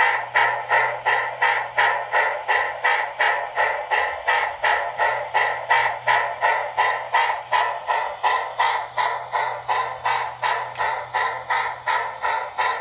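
Sound decoder of an HO-scale model RENFE 141 'Mikado' steam locomotive playing steam exhaust chuffs through its small speaker, an even beat of about three a second.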